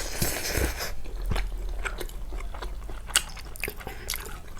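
A person chewing and biting food close to the microphone, with many small sharp mouth clicks and a short breathy hiss right at the start.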